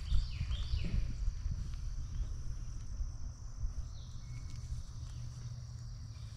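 Steady high-pitched insect chorus, like crickets trilling, with a low rumble beneath it.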